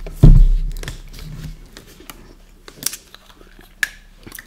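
A heavy thump close to the microphone about a quarter second in, dying away over about a second. It is followed by a few sharp clicks and small mouth sounds of eating.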